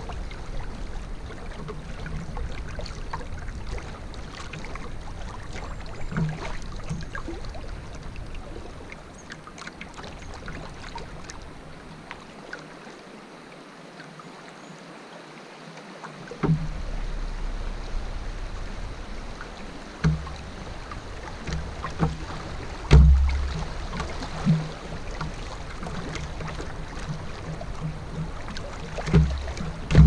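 A canoe moving down a river: steady water noise around the boat, with a few knocks against the hull and low rumbles in the second half.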